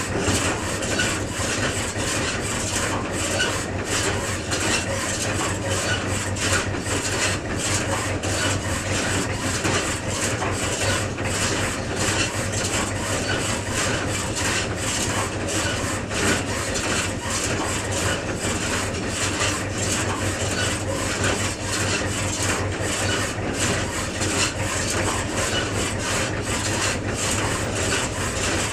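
Farm tractor's diesel engine idling steadily, a low, even running with fast regular pulses.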